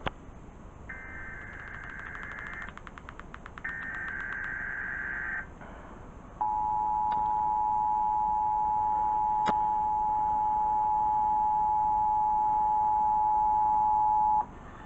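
Emergency Alert System broadcast over the radio: two bursts of buzzing SAME digital header tones. About a second later the EAS attention signal sounds, a loud steady two-tone alarm held for about eight seconds before it cuts off. These are the data header and attention signal that open a Required Monthly Test.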